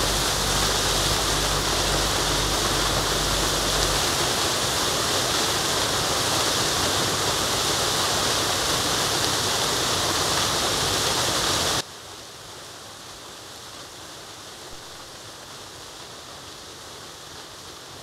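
Monsoon waterfall pouring over rocks into a pool: a steady, loud rush of falling water. It drops suddenly to a much softer rush about twelve seconds in.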